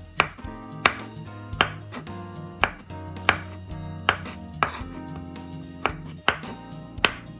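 A knife chopping on a cutting board, about ten sharp cuts at an uneven pace, over background music.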